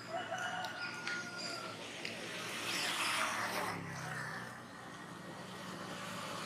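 A vehicle engine running at a distance, a steady low hum that grows a little stronger about halfway through. A few short high squeaks and light clicks come in the first two seconds.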